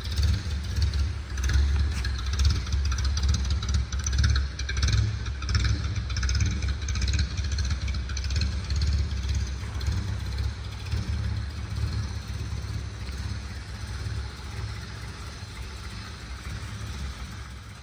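1949 Ford Anglia E494A's side-valve four-cylinder engine idling steadily. It grows gradually quieter toward the end.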